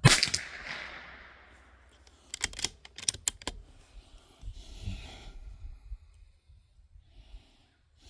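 A single shot from a Bergara B14R bolt-action .22 LR rifle, cracking sharply and echoing away over about a second and a half. About two to three seconds in comes a quick run of metallic clicks as the bolt is worked to eject the case and chamber the next round.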